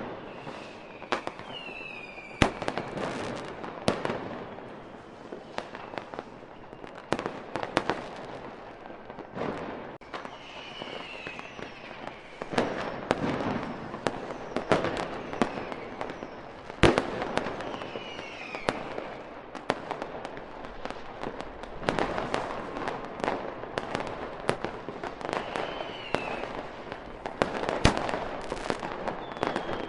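Fireworks display, with a steady run of sharp bangs, some much louder than others, and crackling between them.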